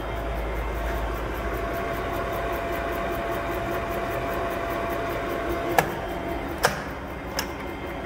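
1980 Takisawa TSL-1000 D gear-head engine lathe running with a steady hum and a faint whine. The whine stops at the first of three sharp clicks, which come near the end, under a second apart.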